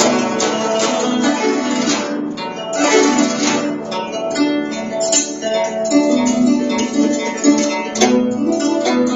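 Guzheng played with fingerpicks: a steady run of plucked notes ringing over one another, above a sustained low note.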